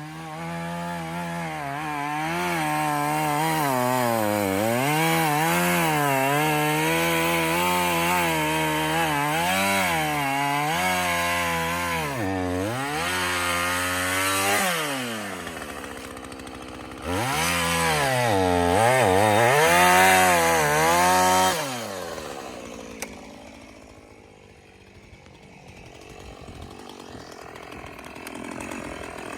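Husqvarna Rancher 450 two-stroke gas chainsaw cutting, its engine pitch rising and falling over and over as the chain bites and eases off. It drops toward idle twice, revs up again, and then winds down and stops about 22 seconds in.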